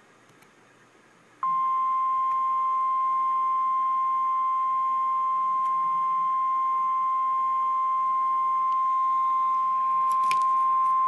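Emergency Alert System warning alarm tone: one steady, loud, single-pitch beep near 1 kHz, the 1050 Hz tone of NOAA Weather Radio warnings. It starts about a second and a half in and holds for about ten seconds, announcing a flash flood warning.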